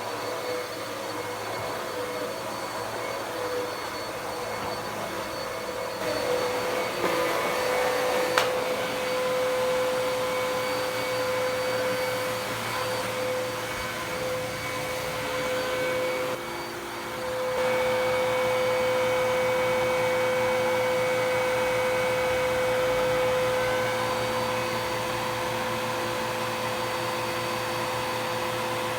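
Dirt Devil PowerMax Pet upright vacuum running over carpet, a steady motor whine. There is one sharp click about eight seconds in, and a brief drop in level around sixteen seconds, after which it runs louder and steadier.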